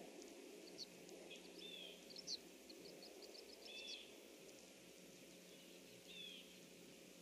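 Faint distant birdsong: a bird gives a short slurred two-part call three times, with quick runs of thin high chirps between, over a steady low background hum of outdoor noise.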